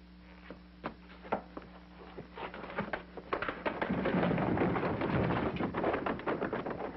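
Things tumbling off a cluttered closet shelf: a few scattered knocks, then a quickening run of knocks that builds, about four seconds in, into a long, loud clattering crash.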